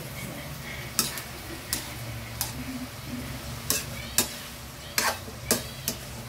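A metal spoon scraping and clinking against an aluminium wok as diced chicken sisig is stirred, with about eight sharp, irregularly spaced strokes over a low steady hum.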